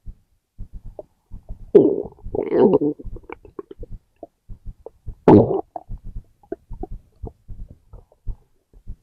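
Human stomach growling and gurgling: a patter of short gurgles and pops throughout. There are two louder rumbles, one about two seconds in that slides down in pitch, and a shorter one about five seconds in.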